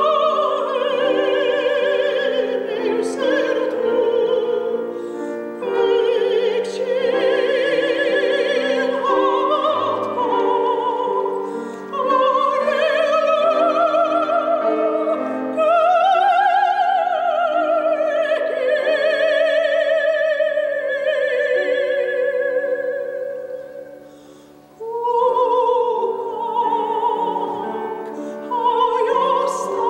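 A woman's operatic voice singing with wide vibrato on long held notes, accompanied by grand piano. The voice tails away briefly about five seconds before the end, then comes back in.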